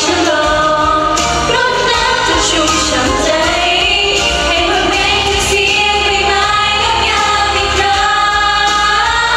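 A woman singing a Thai-language idol pop song into a handheld microphone over a loud backing track.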